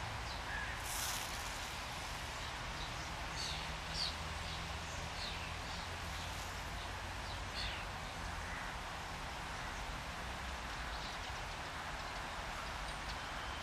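Birds chirping in short, scattered high calls over a steady outdoor hiss and a low, even hum.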